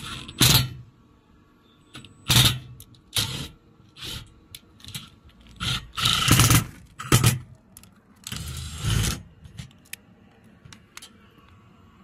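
Milwaukee Fuel cordless driver running in short, irregular bursts as it drives self-tapping screws through an aluminium solar mounting rail into the steel under the roof tiles; the longest burst, just under a second, comes about six seconds in.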